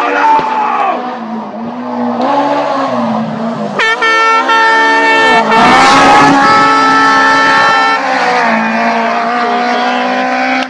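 Rally car engine running hard at high revs, its pitch climbing and dropping with throttle and gear changes. About four seconds in it switches abruptly to a louder car at full throttle.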